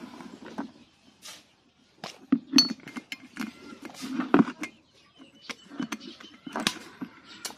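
Steel camshaft and cylinder-head parts of a motorcycle engine clinking and clicking as the camshaft is fitted into the head by hand: a handful of sharp metal-on-metal knocks at uneven intervals.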